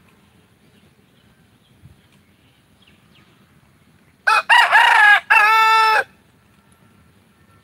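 A rooster crowing once, about four seconds in: a loud cock-a-doodle-doo of nearly two seconds, ending on a long held note.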